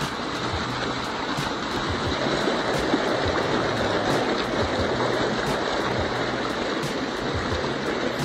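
Stream water rushing steadily over rock, spilling down a small cascade.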